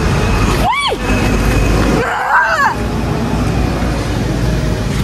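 Steady road-traffic rumble. A short tone rises and falls about a second in, and a brief voice is heard about two seconds in.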